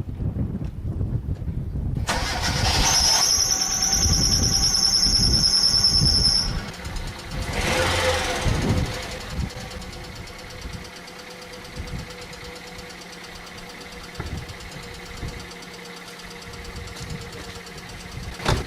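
Hyundai engine cranked on a cold start and catching, with a high-pitched squeal for about four seconds before it dies away and the engine settles to a steady idle. This is the squeal of a slipping alternator belt, which the owner says nine times in ten just needs tightening.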